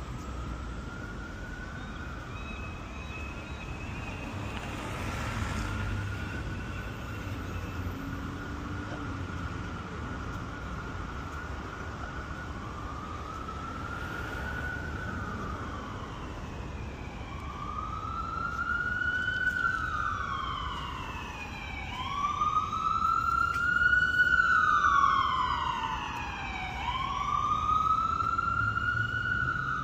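Emergency vehicle siren, faint and held on a steady tone at first, then sweeping in a slow rising-and-falling wail that grows louder from about halfway and is loudest near the end. A steady low traffic rumble lies underneath.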